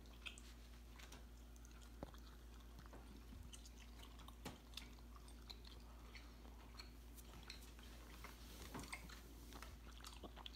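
Faint chewing and biting of sour candy straws, with scattered small clicks and smacks over a low steady room hum.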